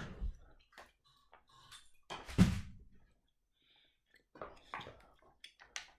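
Handling noise from a plastic USB charger and its cables: scattered light clicks and knocks, with one louder thump about two and a half seconds in and a cluster of small clicks near the end.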